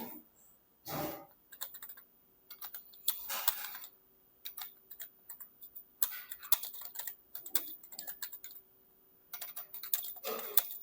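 Computer keyboard keys clacking in quick bursts with short pauses, as a passage is typed at speed.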